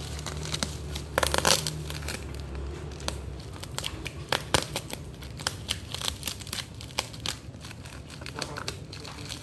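Product packaging being opened and handled: crinkling and rustling, densest and loudest about a second in, then scattered sharp crackles and clicks. A low hum stops about three seconds in.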